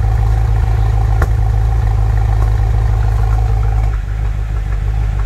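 Car engine idling through twin exhaust tailpipes, a steady low rumble, with a single sharp click about a second in.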